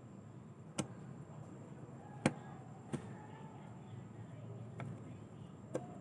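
Four sharp clicks and taps, the loudest about two seconds in, from a small hand tool working at a mist humidifier's circuit board in its plastic base, over a low steady hum.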